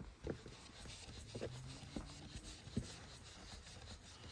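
Faint scattered clicks and knocks, about five short ones spread over a few seconds.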